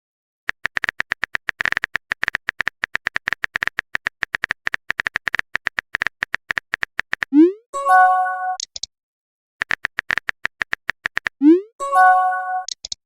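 Phone-keyboard typing clicks, about eight or nine a second, each run followed by a message chime: a quick rising swoop and then a short electronic chord. The pattern of typing then chime happens twice.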